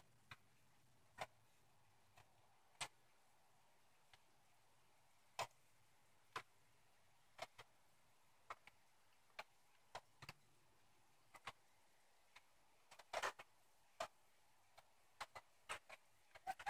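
Near silence broken by short, sharp clicks at irregular intervals, roughly one a second, with a quick cluster of several about two-thirds of the way through.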